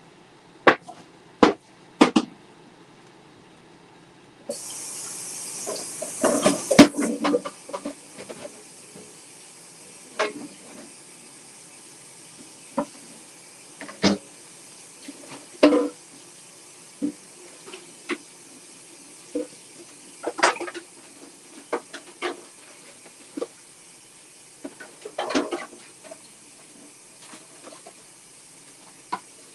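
Kitchen tap turned on a few seconds in and left running into the sink, with scattered clinks and knocks of pots and dishes being handled.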